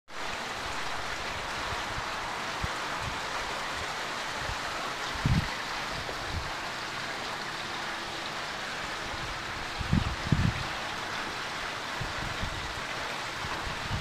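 Homemade backyard waterfall: a sheet of water pouring steadily from a stone ledge and splashing onto the rocks below. A few low thumps on the microphone, about five and ten seconds in.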